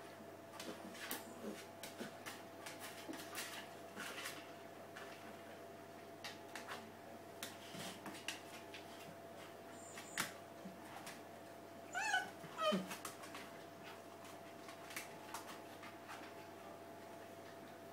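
Bull terrier puppies shifting in their bedding, with small scratchy clicks and rustles, and one brief squeaky puppy whine falling in pitch about two-thirds of the way through.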